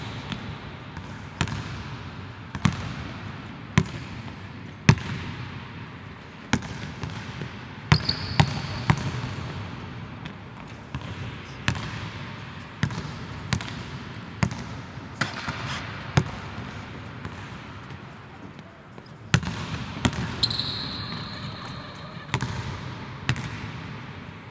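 Basketball bouncing on a hardwood court: single sharp bounces about once a second, with a few quicker runs, each echoing in a large empty arena.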